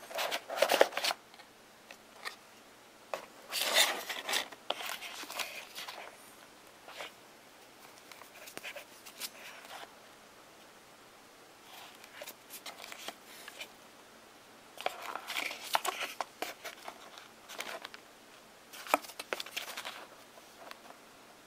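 Cardboard phone-box packaging and paper being handled: card inserts and printed sheets rustling and scraping in irregular bursts, with short quiet pauses between.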